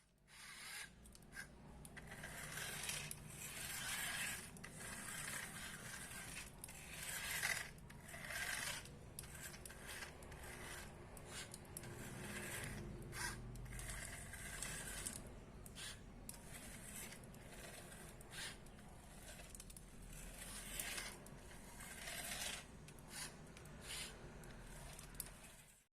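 Cardboard being cut and handled: irregular scraping and rubbing strokes, with a low steady hum underneath.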